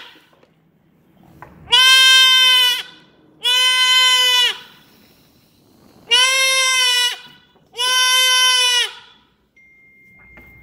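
Boer goat buck kid bleating loudly four times, each cry about a second long and held at a steady pitch, while a hot disbudding iron is pressed to its horn bud.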